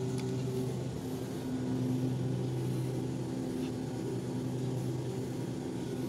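Steady low hum of running air-handling equipment, an even drone that holds level throughout.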